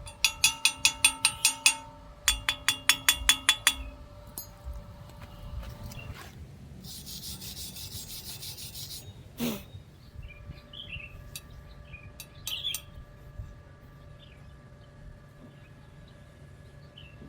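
Metal struck in two quick runs of about ten ringing taps each, roughly six a second, followed a few seconds later by a brief high hiss; birds chirp faintly through the latter part.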